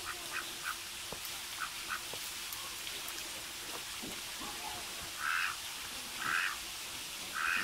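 A mallard–goose hybrid calling: a few soft short calls in the first two seconds, then three louder short calls about a second apart in the second half.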